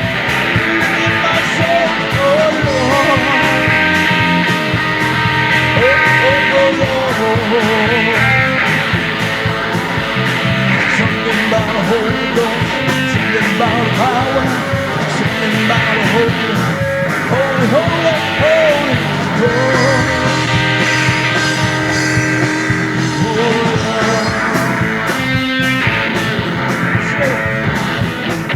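Band music with guitars and bass, carrying an instrumental lead line that bends and wavers in pitch.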